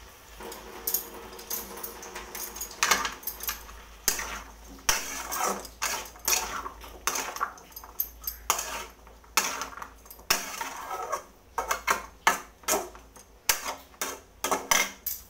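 Dishes and metal utensils clinking and clattering at a kitchen sink as they are washed and put down, in many quick, irregular knocks.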